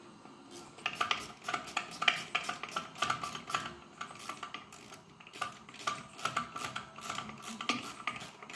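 Small metal parts and tools clinking and scraping against each other in quick, irregular strokes, with a ringing metallic note. It starts about a second in.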